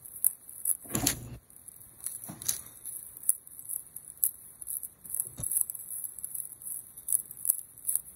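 Black pepper being shaken from a container over a raw beef roast: light, irregular rattling ticks, with a louder knock about a second in and another about two and a half seconds in.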